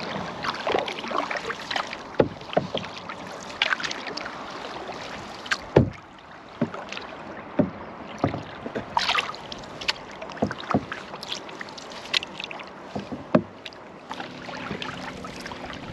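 Wooden single-blade canoe paddle stroking through lake water beside the hull: repeated irregular splashes and drips with a few sharp knocks, over a steady background hiss of water and wind.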